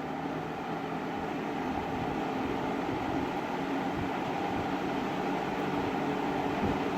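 JCPenney box fan running on medium speed: a steady rush of air over a low motor hum. It builds a little over the first couple of seconds as the blades come up to speed after being switched up from low.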